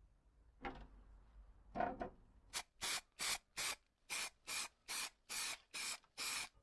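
Aerosol spray can giving about ten short hissing bursts in quick succession, roughly three a second, after two softer scuffing sounds.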